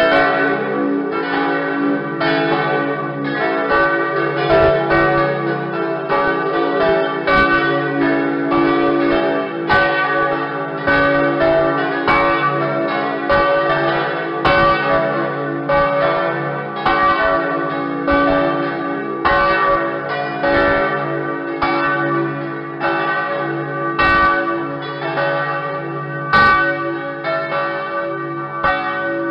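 The church bells of Cossonay ringing in a full peal: several bells struck in quick, uneven succession, about two or three strokes a second, their tones ringing on over one another.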